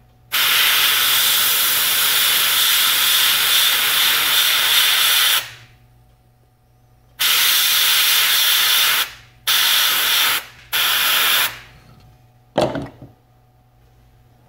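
Gravity-feed airbrush spraying paint through a gill template: a steady air hiss in four bursts, the first about five seconds long and the next three shorter. A short knock follows near the end.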